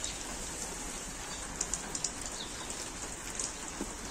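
Rain falling steadily, with scattered drops ticking on nearby surfaces.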